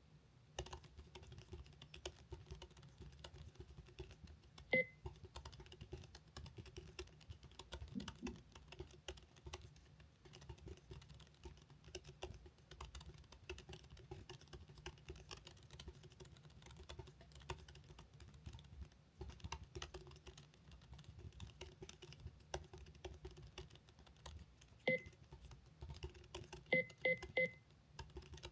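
Fast, continuous touch-typing on a computer keyboard: a dense, unbroken stream of key clicks. A few short high beeps cut in, one about five seconds in and a quick run of them near the end.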